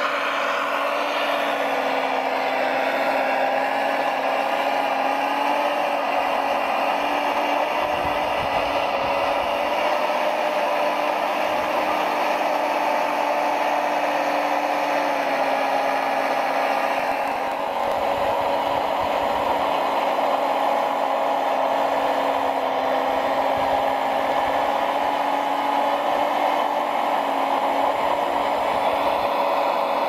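Remote-control model construction vehicle running with a steady engine-like drone, holding an even tone with light clatter. The tone shifts slightly a little past the middle.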